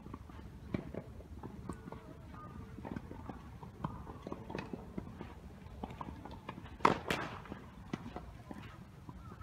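Scattered knocks of tennis balls being bounced and struck around the courts, with one loud, sharp racket-on-ball hit about seven seconds in.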